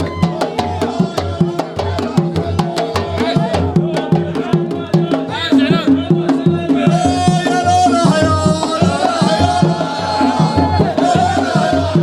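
Arabic wedding music: a quick, even drum beat under a melody line, growing fuller from about seven seconds in.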